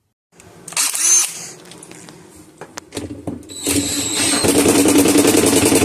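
Impact wrench driving the washer's hub back on: a short burst of the tool about a second in, a few clicks, then about three seconds of rapid, steady hammering.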